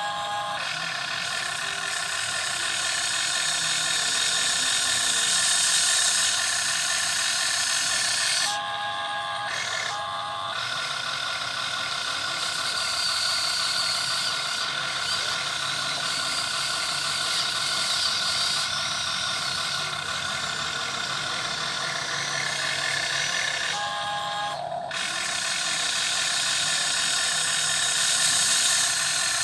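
RC excavator model's electric motors and gearing running with a steady high whine and hiss, which breaks off and restarts briefly a few times as the controls change.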